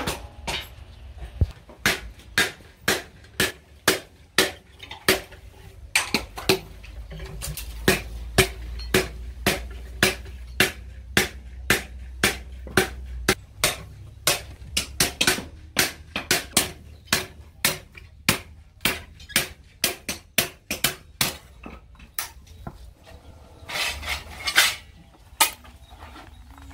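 Hand hammer striking red-hot steel on a steel stake anvil, forging by hand: steady ringing metal blows about two a second, with a short break near the end.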